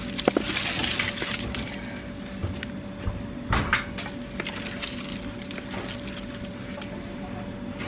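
Black plastic nursery pot being lifted, knocked and squeezed to ease a young tree out, with potting soil spilling and rustling onto bark mulch. Sharp crackles and knocks of the plastic come near the start, and another burst of rustling about three and a half seconds in.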